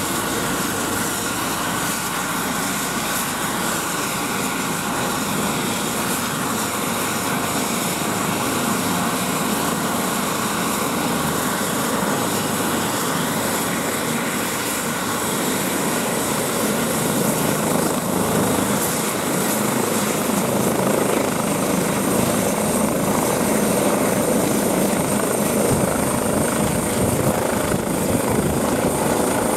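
Eurocopter EC-135's twin turbine engines whining and main rotor turning while the helicopter runs on the ground on its skids. The sound grows gradually louder in the second half. A thin high whine comes in and rises slightly near the end.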